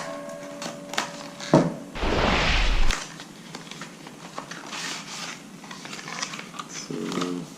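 Crushed cardboard product box being handled and opened: a few sharp clicks, then about a second of loud tearing and scraping about two seconds in, followed by soft rustling of the packaging.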